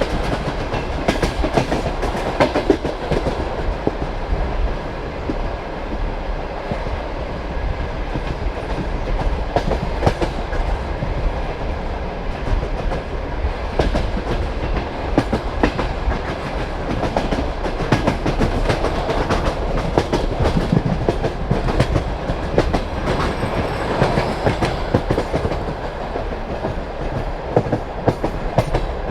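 Passenger train wheels clacking over rail joints, with the steady low rumble of the moving carriage, heard from the carriage window. Sharp clacks come often and unevenly over the rumble.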